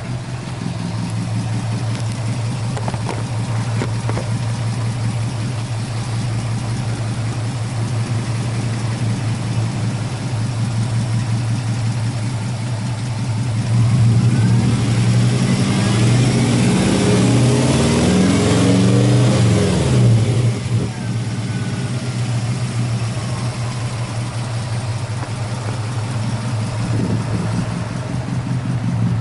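Subaru Impreza WRX's turbocharged flat-four boxer engine idling steadily, then revved several times in quick succession for about six seconds around the middle before dropping back to idle.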